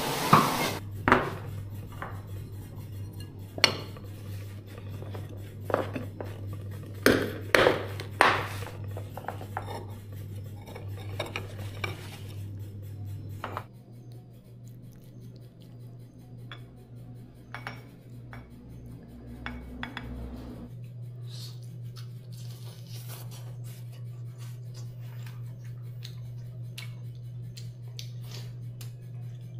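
Dishes and metal cutlery clinking and clattering as they are handled, in irregular sharp knocks that are loudest in the first nine seconds, over a steady low hum.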